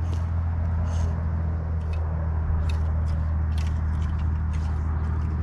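Small outboard motor on a kayak running at a steady low hum, with scattered sharp clicks over it.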